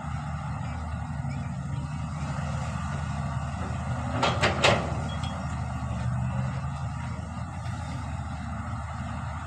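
Heavy diesel engine running steadily, with three sharp metallic clanks in quick succession a little past the middle.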